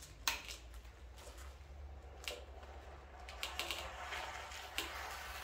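Ratchet wrench working the speedometer mount bolts on a motorcycle: scattered faint clicks, with a quick run of clicks about three and a half seconds in, over a low steady hum.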